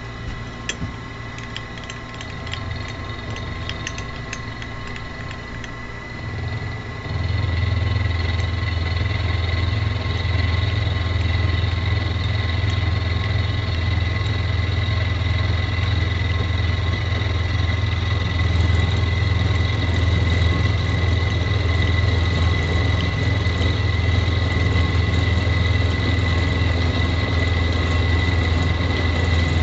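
Mini milling machine running with a steady whine, with a few light clicks in the first seconds. About seven seconds in it gets louder, with a heavier low hum that then holds steady as the cutter takes material off a steel flat bar held by an electromagnetic vise.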